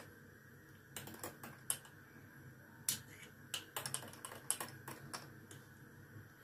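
A metal spoon stirring milky instant coffee in a glass mug, clinking irregularly against the glass. The clinks start about a second in and stop about five seconds in.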